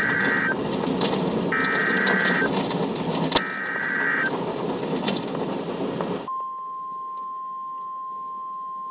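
NOAA Weather Radio emergency alert from a scanner's speaker: three short buzzing data bursts of the SAME alert header, each about a second long, then about six seconds in a long, steady, single-pitch warning alarm tone starts and holds. The alert marks a new tornado warning coming. Hiss and crackle underneath stop abruptly as the tone begins.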